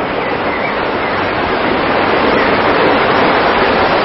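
Waterfall rushing: a steady, loud rush of falling water that swells a little over the first couple of seconds.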